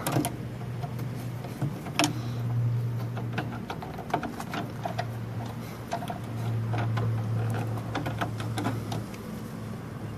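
A flathead screwdriver working the load-terminal screw of a Pushmatic replacement breaker while the conductor is reconnected: small metal clicks and scrapes, with a sharper click about two seconds in. A low hum comes and goes twice underneath.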